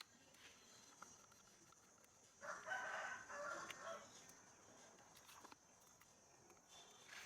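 A rooster crowing once, about two and a half seconds in, lasting about a second and a half, over near silence with a few faint small clicks.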